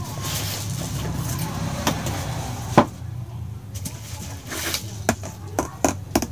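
Bubble wrap and plastic bags rustling and crinkling as wrapped items are handled in a cardboard box, with several sharp clicks and knocks, the loudest about three seconds in and a quick run of them near the end. A steady low hum runs underneath.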